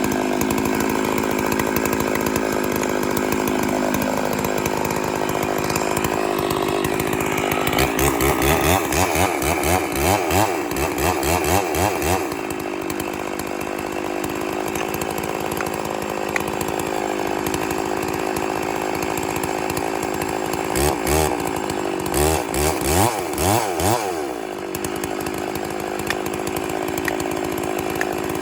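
Gas chainsaw running at high revs, cutting into a tree. Twice, about eight seconds in and again near twenty-one seconds, the engine note wavers in fast, even pulses for a few seconds.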